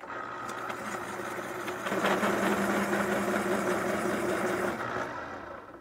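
Electric pencil sharpener's motor starting up and running as a pencil is pushed in, the cutter grinding louder from about two seconds in, then winding down near the end. The sharpener is working again after a jam of erasers and debris was cleared from it.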